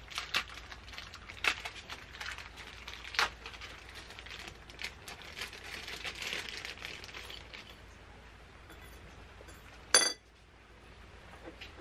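Small metal engine parts clinking and rattling on a workbench as they are handled and rummaged through, with rustling in between. About ten seconds in comes one sharp metallic clink that rings briefly.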